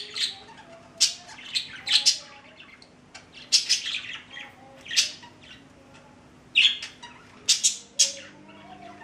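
Two pet budgerigars calling, sharp squawks and chirps every half second to a second with softer chatter in between.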